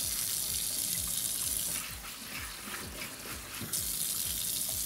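Kitchen faucet running, its stream splashing onto spinach leaves in a mesh colander as they are rinsed. The splashing softens for a stretch in the middle and comes back near the end.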